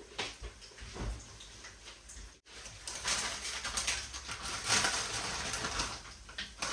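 Onions frying in hot oil in a pan, sizzling and crackling; the sizzle is faint for the first couple of seconds and becomes much louder and denser after a short break about two and a half seconds in.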